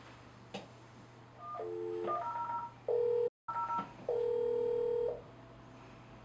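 Electronic call tones from an IP video door phone system placing a SIP video call: a button click, then a quick run of short beeps at several pitches, then two longer steady ringing beeps.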